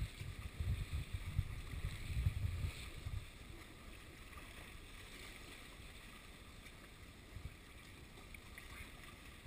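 Open-air seaside ambience: a gusty low rumble buffets the microphone for about the first three seconds, then settles to a quieter steady hiss of breeze and sea.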